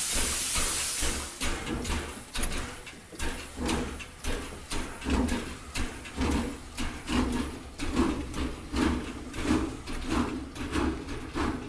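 Steam locomotive pulling away: a hiss of steam at first, then a steady run of exhaust chuffs, about two a second, over a low rumble.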